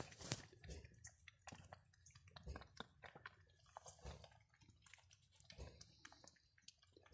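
Cats eating wet food from a tray: faint, irregular wet chewing and smacking.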